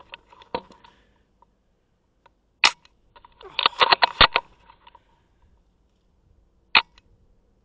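Airsoft guns firing: a single sharp shot, then a rapid burst of about a dozen shots lasting under a second, then another single sharp shot near the end.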